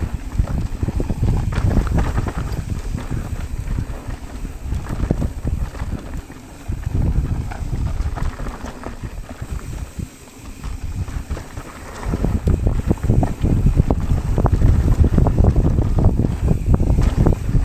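Wind buffeting the microphone of a mountain biker's on-board camera during a fast descent on a dirt trail, mixed with tyre rumble and the bike rattling over bumps. It eases off briefly twice and is loudest over the last few seconds.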